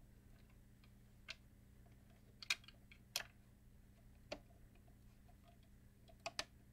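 A handful of faint, scattered clicks and taps from a retaining clip and plastic housing parts of a Bose Acoustic Wave CD3000 being handled and pressed back into place, the last two clicks close together near the end.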